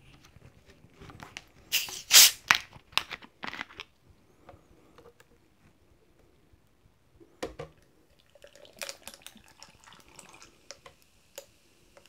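A plastic bottle of carbonated barley soda being unscrewed, the gas escaping in a few sharp hisses about two seconds in, then the plastic bottle crinkling and knocking as it is handled. Near the end the soda starts pouring over ice and fizzes steadily in the glass.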